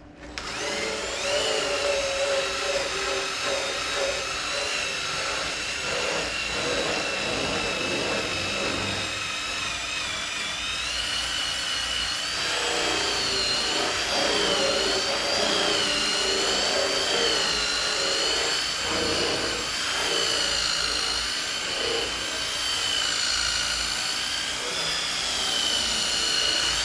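Cordless drill spinning a foam scrub pad over a car's painted fiberglass fender. The motor whines steadily, its pitch wavering as the pad is pressed and moved, with a rubbing scrub underneath. It spins up right at the start, and its pitch rises a little about eleven seconds in.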